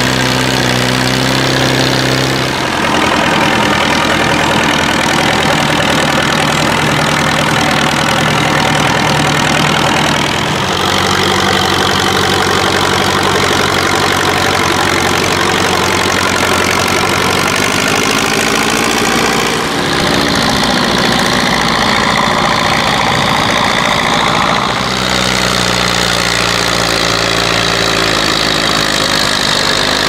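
Diesel engines of vintage Fiat tractors running under load as they pull ploughs. It is several tractors in turn, so the engine note changes abruptly a few times, and the pitch swells and falls once about twenty seconds in.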